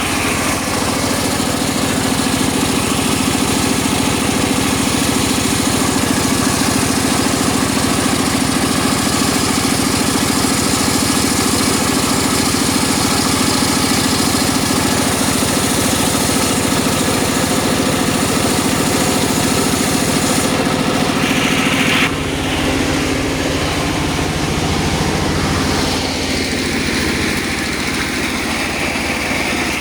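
Engine-driven circular saw machine running with a steady, loud drone. About 22 seconds in, the sound changes abruptly: the higher hiss drops away and the pitch of the drone shifts.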